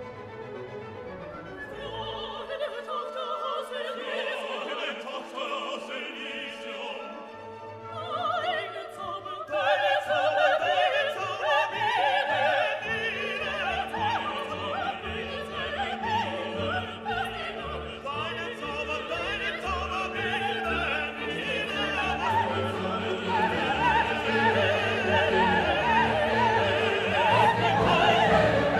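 Background classical music: an orchestra with operatic solo singing and choir, growing fuller about ten seconds in.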